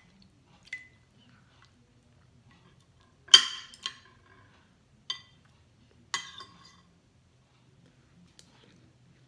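Metal spoon and fork clinking and scraping against a plate and a soup bowl while eating: a handful of sharp, separate clinks with a short ring, the loudest about three seconds in.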